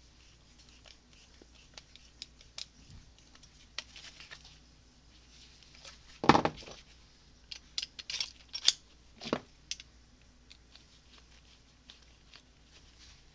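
Small metal clicks and scrapes of starter motor parts and a screwdriver being handled during reassembly. There is a louder knock about six seconds in, then a quick run of clicks a couple of seconds later.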